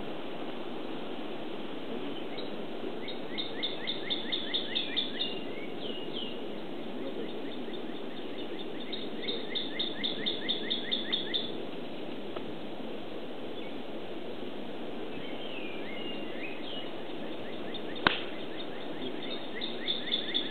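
A songbird sings the same quick phrase of evenly spaced high notes three times over a steady outdoor hiss. Near the end a golf club strikes the ball off the tee with one sharp crack, the loudest sound.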